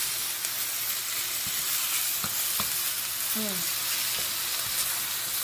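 Bok choy and mushrooms sizzling in a hot wok while a wooden spatula stirs them, a steady frying hiss with a few light clicks and scrapes of the spatula against the pan around the middle.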